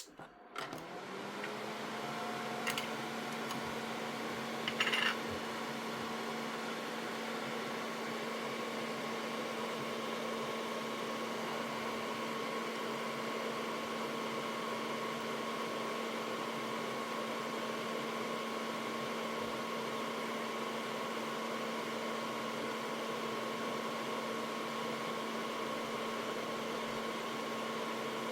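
A small electric fan motor spinning up and then running with a steady hum, with two brief clicks in the first few seconds.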